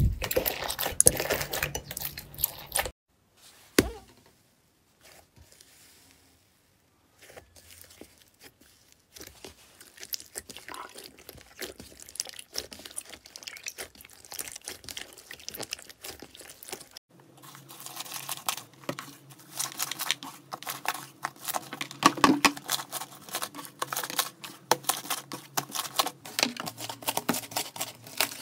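Slime being squeezed, poked and pressed by hand, making dense runs of small crackling clicks and pops. The clicking stops for a few seconds early on, broken by a single thump, then comes back faint and grows louder and denser about halfway through.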